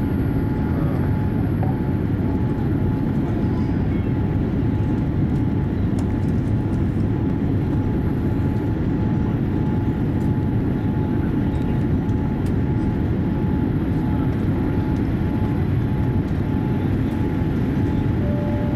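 Steady cabin roar inside a Boeing 787-8 twin-jet climbing out after takeoff: engine and rushing-air noise, heaviest in the low range, with a faint steady hum above it.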